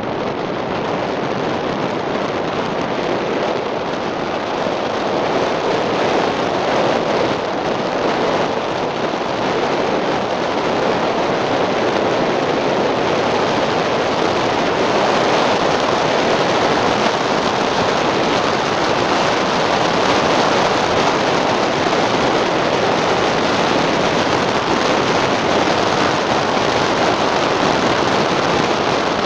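Wind rushing over the microphone of a camera moving at speed along a road: a steady, loud rushing noise that grows a little louder over the first few seconds.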